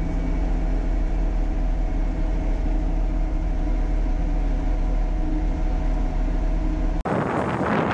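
Truck engine idling steadily with an even, low hum. About seven seconds in it cuts off suddenly to wind buffeting the microphone.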